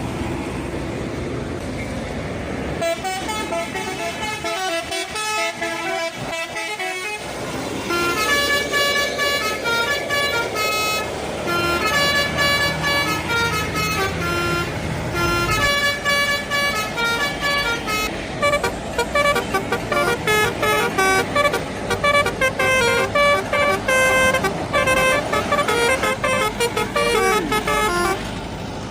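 Indonesian bus telolet horn, a multi-trumpet air horn, playing quick melodic runs of short stepped notes. It starts about three seconds in, after vehicle engine noise, and from about eight seconds on plays fast, choppy repeated phrases.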